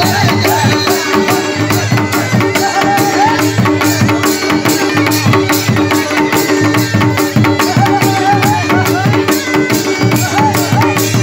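Live Uttarakhandi folk music: dhol drums beat a dense, driving rhythm while a masakbeen (bagpipe) plays an ornamented melody over its steady drone.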